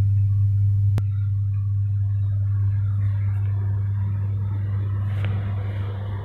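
Kirloskar 6R1080TA six-cylinder turbocharged diesel generator engine running steadily with a deep, even hum. A single sharp click sounds about a second in.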